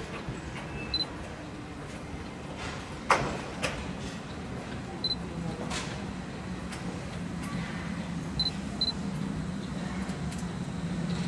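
Distant freight train approaching: a steady low hum that grows gradually louder from about halfway through, with a few sharp clicks, the loudest about three seconds in.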